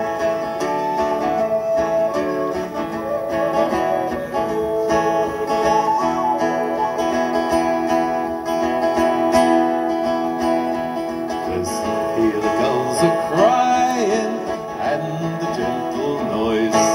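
Live folk music between verses of a sailor song: an acoustic guitar strummed under a harmonica playing the melody.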